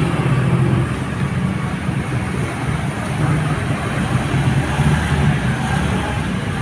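Small motor scooter engines running close by, one passing, with a steady low engine drone throughout.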